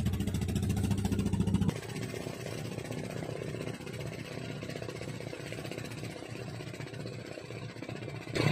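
An engine running steadily with a low hum, louder for the first second or two, then dropping suddenly to a quieter, even drone.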